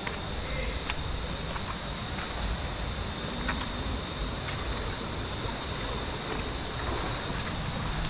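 Steady rush of flowing stream water with wind noise on the microphone, under a constant high-pitched hum and a few faint clicks.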